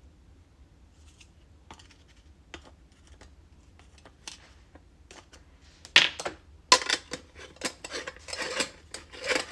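Parts of a glass stovetop moka pot and its metal coffee basket being handled and fitted together: a few light clicks, then from about six seconds in a run of louder clinks, clatters and scrapes.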